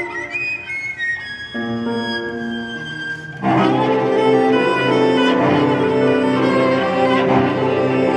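Live piano trio of violin, cello and piano playing an arrangement of an Argentinian folk dance. Held bowed notes give way, about three and a half seconds in, to a louder, fuller passage.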